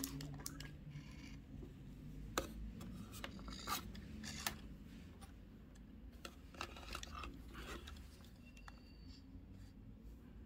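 Faint handling noise from an Anki Vector robot being worked by hand: scattered small clicks from its back button and plastic body, with brief rubbing and scraping as it is gripped and lifted from its charger. A short faint high tone sounds a little past the middle.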